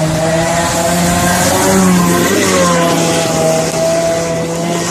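Stand-up jet ski engine running hard as the craft speeds past. Its pitch rises briefly about two seconds in and then settles back, over a hiss of spray.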